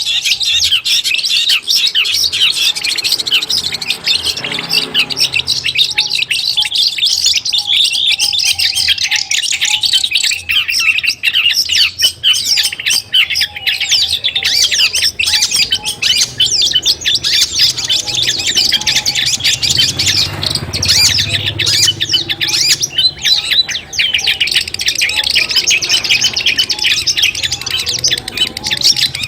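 Long-tailed shrike (cendet) singing a continuous, rapid chattering song of quick notes with no pause, over a faint low hum.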